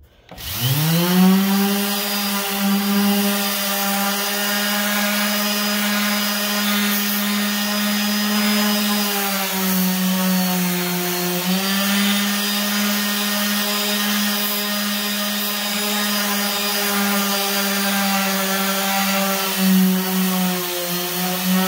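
Makita random orbital sander with 120-grit paper spinning up at the start and then running steadily on the tabletop, taking the factory finish off the wood. Its pitch sags slightly for about two seconds midway, then comes back up.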